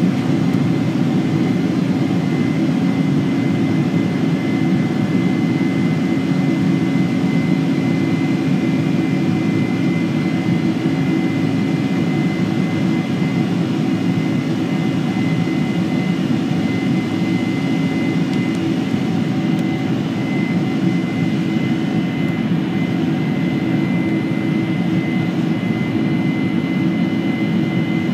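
Boeing 747-400 jet engines heard from inside the passenger cabin while the airliner taxis: a steady, even rumble with a steady high whine above it.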